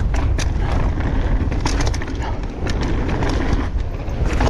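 Mountain bike rolling down a dirt forest singletrack: steady low wind rumble on the microphone, tyre noise, and frequent short clicks and rattles from the bike over the rough ground.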